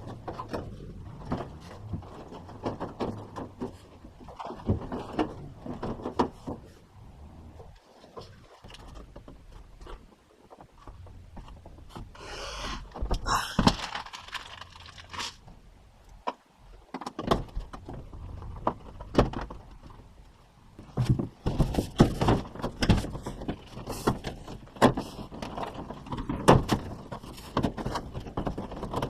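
Irregular knocks, thunks and clatter of hand work on the wooden interior of a vintage VW bus, with a few seconds of rustling a bit before halfway and busier knocking in the last third.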